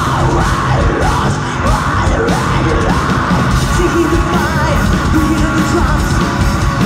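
Live progressive metal band playing loud: a female vocalist's sung line over distorted electric guitars, bass guitar and drums.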